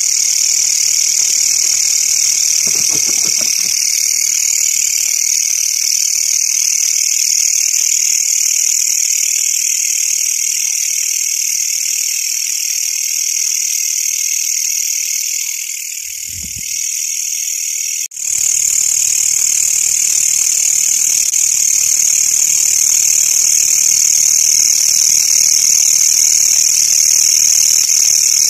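Dense night chorus of calling insects, a steady high-pitched buzzing trill. It fades briefly a little past the middle and comes back with a sharp click.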